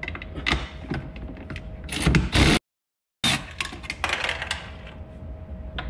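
Cordless electric ratchet with a 15 mm deep-well socket and extension working loose the nut that holds a Mustang's rear seat bracket: the tool clicks and clatters, with a louder run of the ratchet about two seconds in. The sound drops out abruptly for about half a second, then the clicking resumes.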